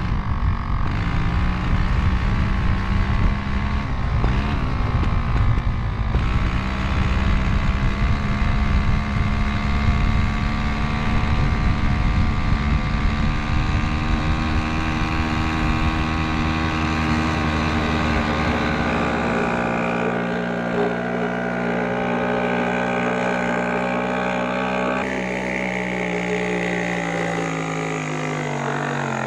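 Lohmann 18cc two-stroke diesel moped engine running steadily while the bike is ridden, a buzzing note with wind on the microphone. Near the end its pitch falls as it slows down.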